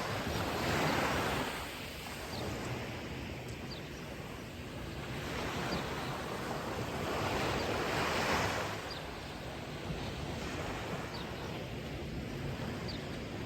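Ocean surf: waves breaking and washing up the shore, swelling loudest about a second in and again around eight seconds.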